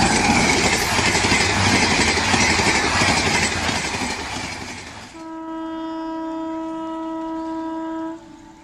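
A loud, steady rushing noise, then a train horn blowing one steady note for about three seconds before cutting off sharply.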